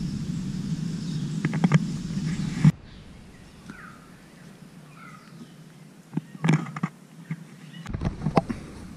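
Walking on a forest trail: a steady low rumble with a few footfalls and rustles. After an abrupt cut it is quieter, with several short bird chirps and occasional footsteps.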